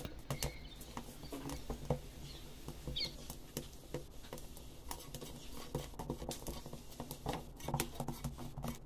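Faint, irregular crackling and ticking from a wood fire under a clay pan on which dried sprats are heating. Near the end, a stick scrapes and taps on the pan as the fish are turned.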